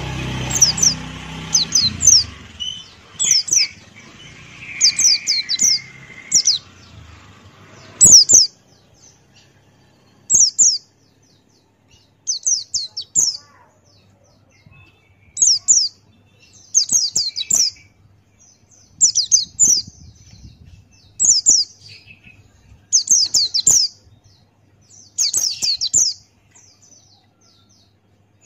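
Pleci Buxtoni white-eye singing: short bursts of rapid, high, downward-sweeping chirps, repeated every second or two.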